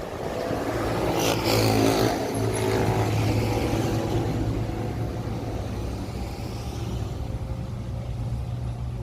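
A motor vehicle's engine running steadily, with a louder swell about a second in that eases off over the next few seconds.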